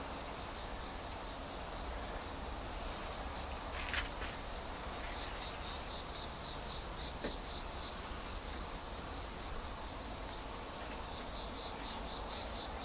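Steady, high-pitched insect chirping in fast, even pulses, with a sharp click about four seconds in.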